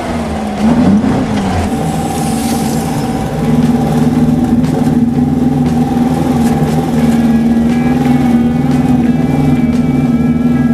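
Volkswagen Baja Bug's air-cooled flat-four engine pulling under load up a steep dirt hill climb. It revs up and back down briefly about a second in, then holds a steady, loud note.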